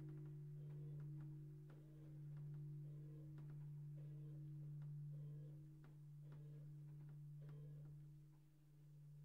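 Bronze church bell swinging down to rest after ringing, its low hum note lingering and slowly swelling and fading with the swing. Faint clicks and creaks come every second or so.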